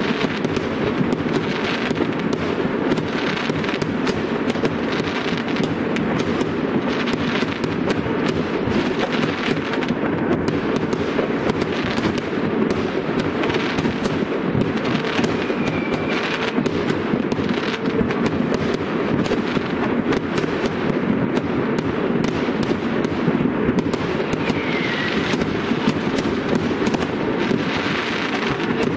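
Fireworks display: a continuous, dense barrage of bangs and crackling from aerial shells and crackling stars, with a few faint short whistles.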